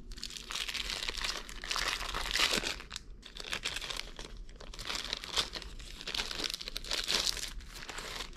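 Clear plastic packaging crinkling and rustling in the hands as a rolled diamond painting canvas is slid out of its sleeve and unrolled, with a couple of short pauses.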